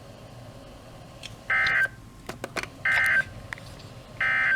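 Emergency Alert System end-of-message signal: three short, identical bursts of SAME digital data tones, about 1.4 seconds apart, closing a weather warning broadcast. A few faint clicks fall between the first two bursts.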